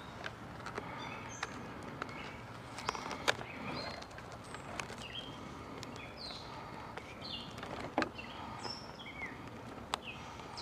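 Small birds chirping, short quick notes scattered throughout. Over them come a few sharp clicks and knocks from hands working on a motorcycle helmet; the loudest come about three seconds in and again about eight seconds in.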